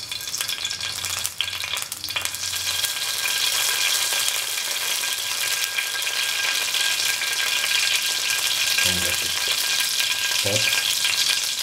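Fenugreek seeds frying in hot oil in a pan: a sizzle that builds over the first few seconds and then holds steady.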